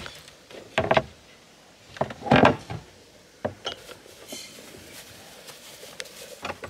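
Plastic knocks and clatter as black plastic levelling wedges are shifted about in a camper van's rear storage, with the loudest knock about two seconds in.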